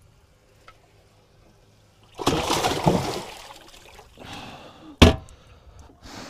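Water splashing in a boat's live well as a largemouth bass is grabbed and lifted out, one loud splash about two seconds in and a smaller one later. A single sharp knock follows about five seconds in.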